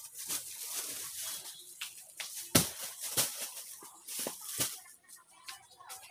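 Plastic-wrapped bundles being handled and stacked: crinkling plastic with several sharp knocks as packs are set down, the loudest about two and a half seconds in.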